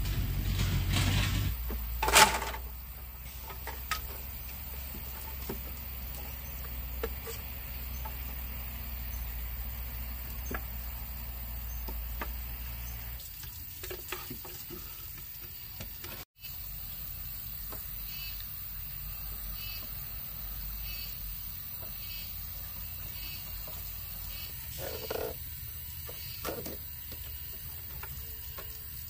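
Water running steadily, with a single sharp knock about two seconds in and scattered lighter clicks.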